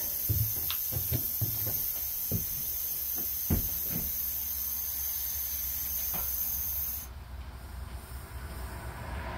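Steady high hiss of compressed air escaping from the shop air line, with a few sharp metallic clicks and knocks in the first four seconds. The hiss cuts off suddenly about seven seconds in.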